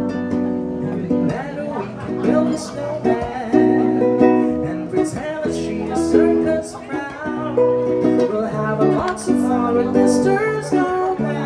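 Live acoustic music: a solo singer accompanying himself on a strummed acoustic guitar, heard through a PA speaker.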